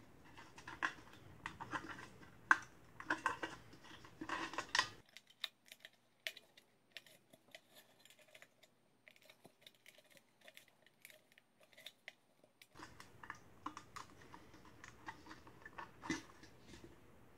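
Thin metal keg can and the metal mesh inside it being handled and turned over: irregular light clicks, taps and rubbing of sheet metal. The clicks are denser in the first five seconds and again from about thirteen seconds in, sparser in between.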